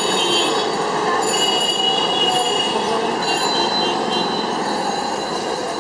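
Busy street traffic din: a steady mix of traffic and crowd noise, with many overlapping high-pitched squeals and rings coming and going.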